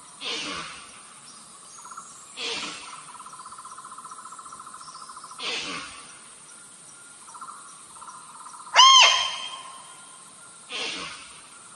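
Female deer bleat played as a hunting lure to call in a stag: one loud, high call that rises and falls in pitch about nine seconds in. Short rough hissing sounds come every two to three seconds, over a steady insect trill.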